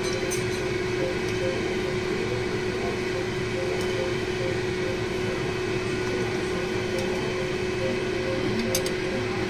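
Steady machine hum with one constant tone, like a running fan or motor, and a few faint light clicks.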